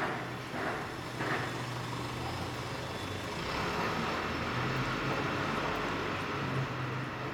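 Steady low hum of motor-vehicle traffic. A cat lapping at water on ice makes two short licking sounds in the first second and a half.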